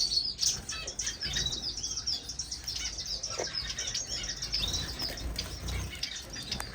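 A roomful of small captive finches chirping: many quick, high chirps overlapping continuously from several birds at once.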